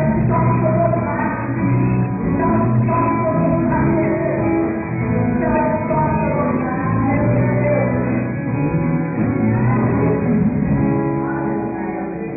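A live band playing rock-style music with singing, getting quieter near the end.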